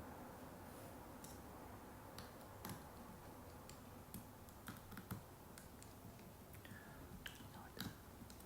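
Faint, scattered small clicks and taps, a dozen or so at uneven intervals, from a small screwdriver and the metal parts of a 7artisans lens being handled while its mount is screwed back on.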